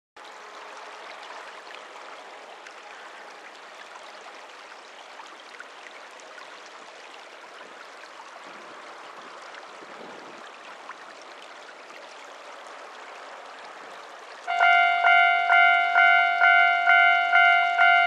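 Steady outdoor background hiss, then about fourteen and a half seconds in a Japanese railway level-crossing warning bell starts ringing loudly, about two to three strikes a second. It is the crossing signalling that a train is approaching.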